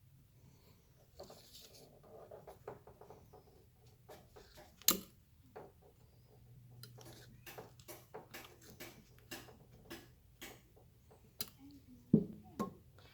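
Scattered light clicks and taps of a seat belt retractor's parts being handled and worked apart, with a sharper knock about five seconds in and two more near the end.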